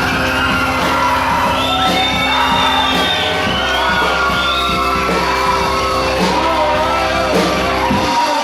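A roomful of young people shouting, whooping and singing all at once over held instrument notes, a trombone among them, in a loud steady din that cuts off suddenly near the end.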